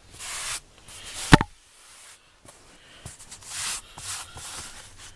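Hand and a rubber grooming brush rubbing over a carpeted foam floor mat in short scrubbing swishes, with one sharp knock about a second in.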